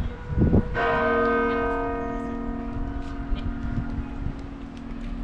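A large church bell struck once, about a second in, its ringing tone slowly fading away. A short low thump comes just before the strike.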